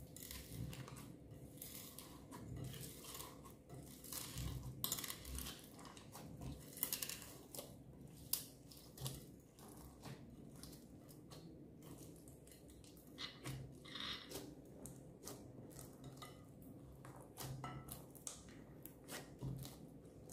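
Hands squishing and kneading clear slime mixed with plastic beads, sprinkles and glitter: faint, irregular sticky crackles and small clicks.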